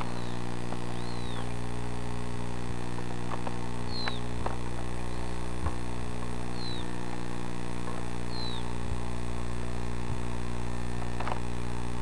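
A steady low hum throughout, with a bird giving short, falling chirps every couple of seconds, about five in all.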